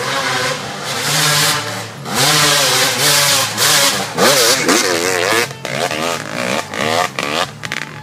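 Dirt bike engine revving up and down under the rider's throttle, with quick rises and falls in pitch about four to five seconds in.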